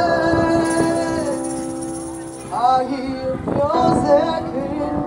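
Gospel choir singing live: several voices hold a long chord for about two seconds, then voices slide up into the next phrase.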